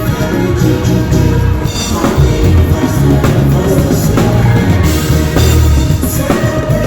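Live band playing loud music at a sound check, with heavy bass and drums.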